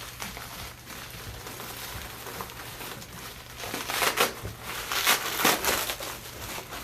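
Plastic packaging crinkling and rustling as it is handled and pulled apart, with louder bursts of crinkling about four and five seconds in.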